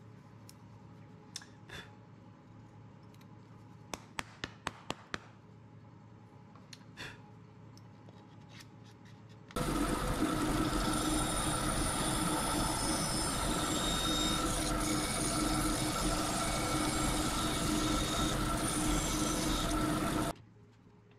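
A few light knocks and a quick run of five sharp taps, then a bandsaw running as it cuts the turned ash mallet handle: a loud, steady whine and hiss that starts suddenly about halfway through and stops abruptly near the end.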